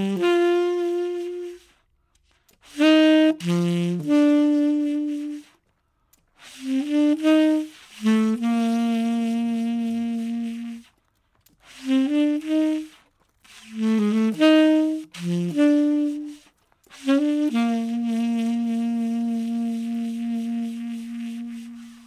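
Background music: a solo saxophone with no accompaniment, playing short phrases separated by brief pauses. It ends with two long held low notes, the last one lasting about four seconds.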